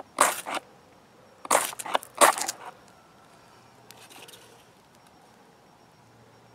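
A Sami puukko-style bushcraft knife shaving dry wood into fine curls for tinder. There are three quick scraping strokes in the first few seconds, then only a faint scrape.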